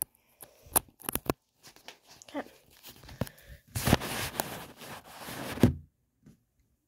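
Phone being handled close to the microphone: a few sharp knocks and clicks, then nearly two seconds of loud rustling from about four seconds in, cutting off abruptly near six seconds.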